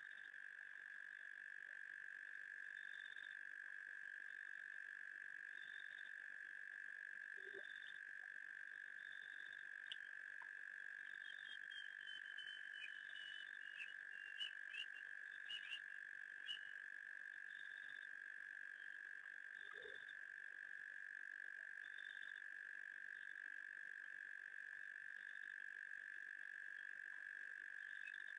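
Steady high-pitched night chorus of frogs and insects at a waterhole, with a higher call repeating every couple of seconds and a short run of chirps and clicks around the middle.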